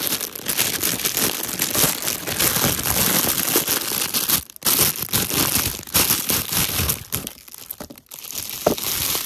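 Clear plastic bag crinkling and rustling as it is worked off a small toy tractor by hand, breaking off briefly about halfway and again near the end.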